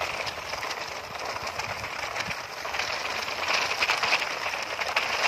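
Plastic toy dump trucks loaded with stones rolling over gritty dirt: a crackling, gritty hiss that grows louder about three seconds in.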